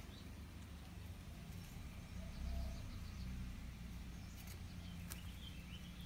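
Quiet outdoor background with a low rumble from the handheld phone being moved, a couple of faint clicks near the end and a faint bird chirp just before the end.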